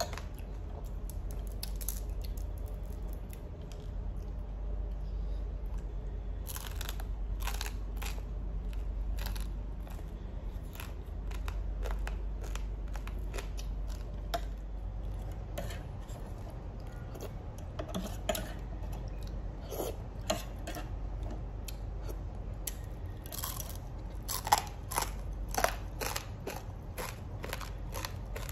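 Eating sounds: chewing and biting into a crusty toasted bun and tearing it apart, with a spoon and fork clicking and scraping against a small metal dish. The clicks are scattered throughout, clustering and loudest a few seconds before the end, over a low steady hum.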